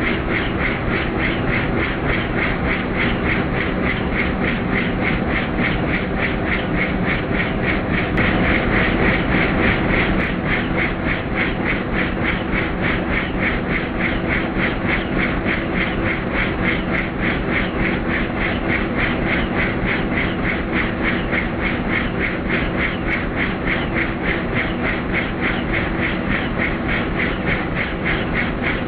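Helicopter in flight: a steady, rapid beat of rotor blades over a constant rush of engine and airflow noise.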